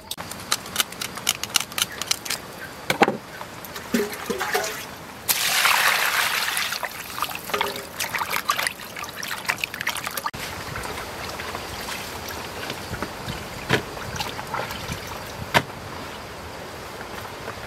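Hands washing a raw red fish in a plastic basin of water: repeated splashing and sloshing with trickling water, loudest about five to seven seconds in. After about ten seconds this gives way to a steady hiss of rain starting to fall, with a few sharp drips or knocks.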